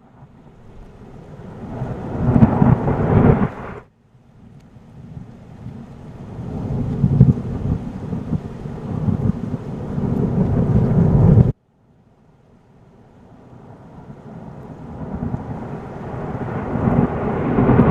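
Thunderstorm sound effect: three rolls of thunder over rain hiss, each swelling louder and then cut off suddenly.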